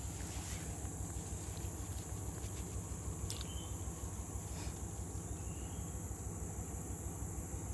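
Steady high-pitched chorus of insects, unbroken throughout, with a few faint clicks near the middle.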